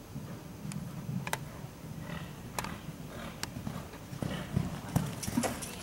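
Hoofbeats of a show hunter moving around the arena: scattered hoof strikes heard as low thuds and sharp clicks at an uneven pace.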